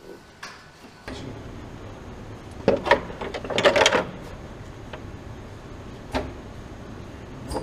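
Hard plastic clattering and knocks as a leather-covered car interior trim panel is handled and set into a foam-lined fixture, a burst of them about three seconds in and single knocks later, over a steady factory machine hum.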